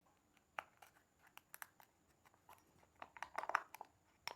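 Faint crinkling and clicking of a plastic wrapper being worked off a packaged jar by hand, with a denser run of crackles about three seconds in.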